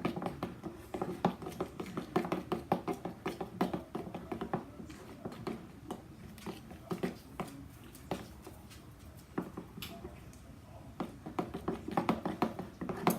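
A spoon stirring slime in a container: quick, irregular clicks and taps of the spoon against the sides. The clicking thins out in the middle and picks up again near the end.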